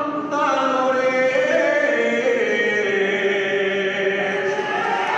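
A man singing an Aragonese jota into a microphone, holding long, drawn-out notes that step down in pitch toward the close of the song.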